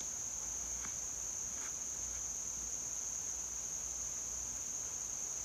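Steady high-pitched drone of an insect chorus that never breaks.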